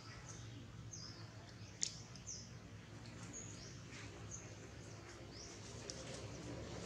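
Faint high chirps and tweets of small birds, short and scattered, with one sharp click about two seconds in.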